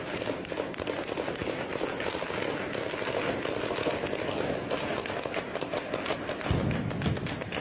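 Gunfire from live rounds: many sharp shots in quick, irregular succession over a steady din, with a heavier low thud near the end.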